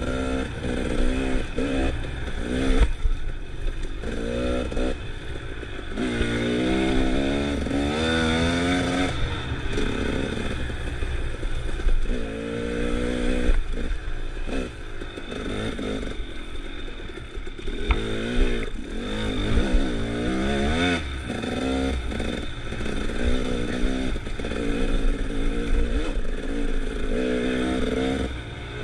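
Dirt bike engine revving up and easing off again and again as the rider works the throttle and gears along the trail, over a steady low rumble of wind, with stones scraping and clattering under the tyres.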